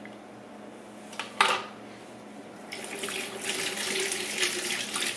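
A single knock, then a kitchen faucet running into the sink as a steady hiss for the last couple of seconds.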